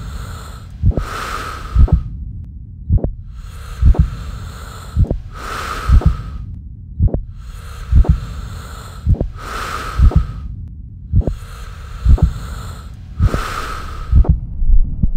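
A slow human heartbeat sound effect, with deep thumps about once a second, under loud breathing. Each breath in and out takes about four seconds, and the breathing stops shortly before the end.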